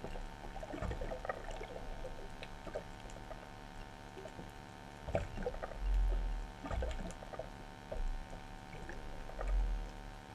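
Muffled underwater sound picked up by a camera in its waterproof housing: water sloshing against the housing in low thuds, the strongest about six seconds in and near the end, over a faint steady hum with scattered small crackles and clicks.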